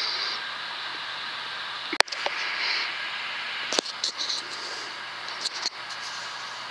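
Air rifle shots over a steady hiss: a sharp crack about two seconds in, a second one nearly two seconds later, then a few lighter clicks.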